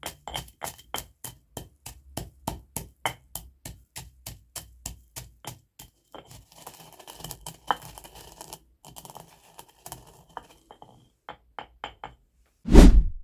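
Pestle crushing black peppercorns in a mortar: sharp cracks in a steady beat of about four a second, then a few seconds of grinding and crackling with scattered cracks. A heavy thump near the end is the loudest sound.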